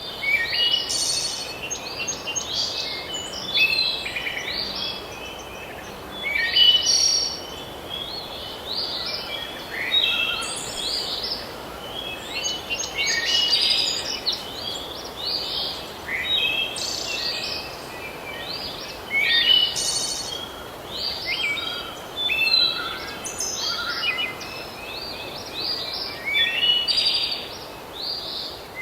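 Songbirds singing in chorus: short, high chirping and trilling phrases follow one another every second or two, several birds overlapping, over a faint steady background hiss.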